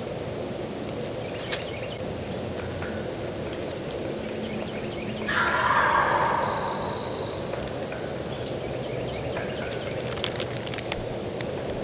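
A wild turkey gobbler gobbles once, about five seconds in, a rough rattling call lasting about a second and a half. Faint songbird chirps are around it.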